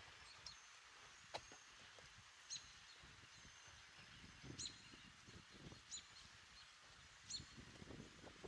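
Near silence with faint, short bird chirps repeating about every second and a half, and a few faint taps.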